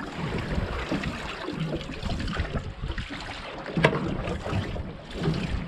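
Wind on the microphone and choppy sea water splashing around a boat's hull, with no engine running. There is a single sharp knock a little before four seconds in.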